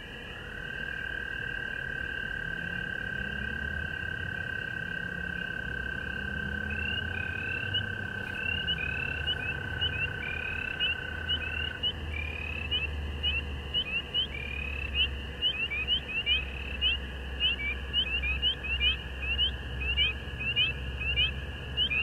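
Frogs calling at dusk: a steady, high chorus with one frog's short rising peeps that grow quicker toward the end, and a long, steady call that stops about halfway through.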